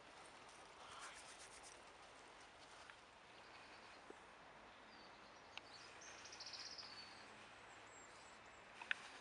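Quiet outdoor ambience: a faint steady hiss, with a short, rapid, high bird trill about six seconds in and a couple of light clicks near the end.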